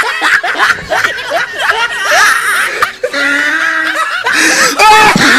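People laughing in quick short bursts.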